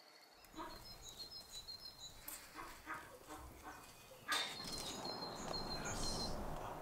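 Faint outdoor ambience with small birds chirping and light footsteps. About four seconds in, the background noise steps up and stays steady, with the birds still chirping over it.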